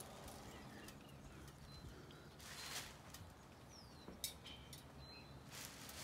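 Faint, intermittent rustling and scraping as nesting debris is scooped out of a wooden owl box into a plastic trash bag, with a couple of light clicks and a brief falling high chirp near the middle.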